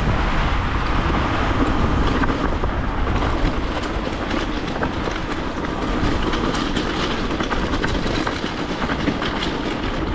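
Talaria Sting electric dirt bike ridden along a rough trail: a steady rumble of wind and tyres with a faint motor hum, and scattered clicks and rattles from the bike over the bumps.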